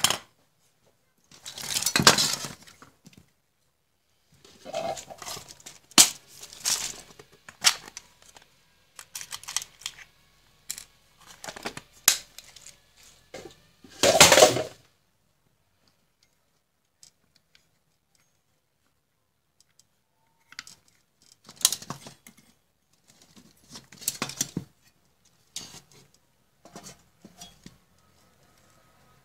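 Handling noise from a computer power supply being taken apart: its circuit board and steel case shifting, scraping and clinking, with sharp clicks and rustles in uneven bursts. The noise stops for several seconds past the middle, then comes back more lightly.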